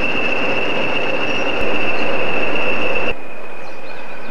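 A pair of British Rail Class 20 diesel locomotives working with coaches, their English Electric engines running with a loud, steady, high-pitched turbocharger whistle. The sound swells about a second and a half in, then drops abruptly about three seconds in, leaving the whistle fainter.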